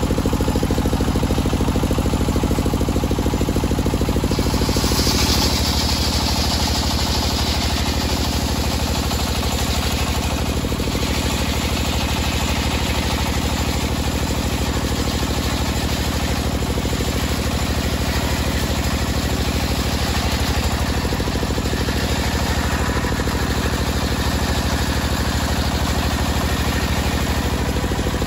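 Homemade table circular saw running steadily with its drive motor, ripping a teak beam; the cutting hiss is loudest about five to eight seconds in, then comes in weaker swells as the beam is fed through again.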